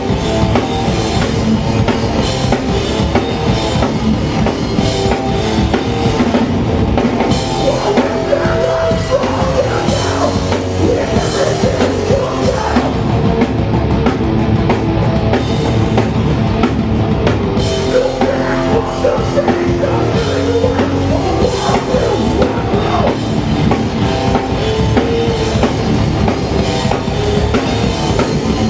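Hardcore punk band playing live: a full band with a driving drum kit, loud and dense throughout.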